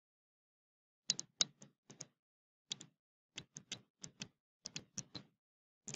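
Stylus tip tapping on a touchscreen while handwriting, a quick irregular run of sharp clicks starting about a second in.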